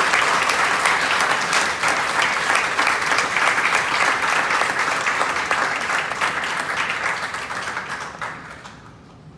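Audience applauding, a dense steady clapping of many hands that tapers off and dies away about eight or nine seconds in.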